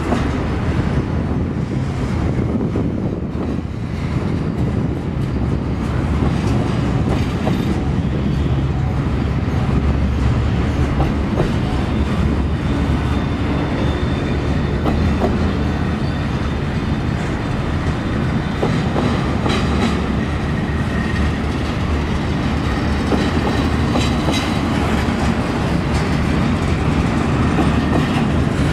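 Loaded double-stack container well cars of a long freight train rolling past: a steady low rumble of steel wheels on rail, with scattered knocks over the rail joints and a faint high wheel squeal now and then.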